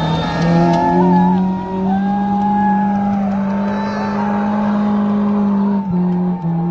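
A 4x4's engine revved hard and held at high, fairly steady revs, with a brief dip in revs near the end, as the stuck vehicle strains to drive free.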